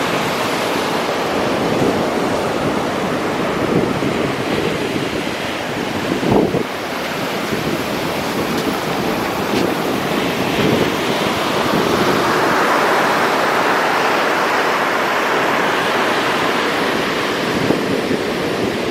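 Ocean surf close up: wash running up and back over the sand, with foam fizzing near the handheld recorder, and wind buffeting the microphone. A brief thump about six seconds in.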